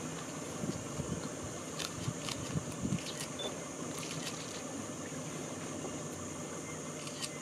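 Steady low motor hum under a constant high insect drone, with a few light clicks in the first three seconds.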